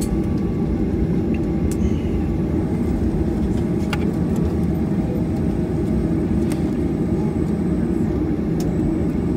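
Steady low rumble inside a jet airliner's cabin as the plane taxis after landing.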